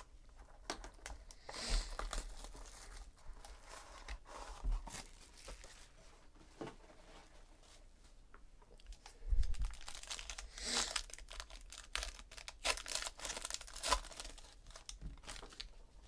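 Foil wrapper of a trading-card pack being torn open and crinkled in irregular bursts, with a dull knock on the table about nine seconds in.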